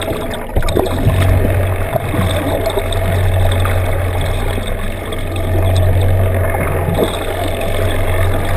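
A boat's engine heard through an underwater camera: a steady low drone with water noise over the microphone.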